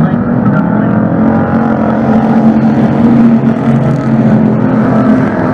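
A pack of street stock race cars' V8 engines running hard on the dirt oval, several engines overlapping with wavering pitch. The sound swells as the cars come down the near straight past the grandstand.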